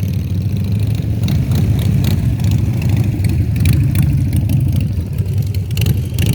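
Harley-Davidson V-twin motorcycle engine running loud with a rapid low-pitched pulse, with scattered clicks and rattles over it.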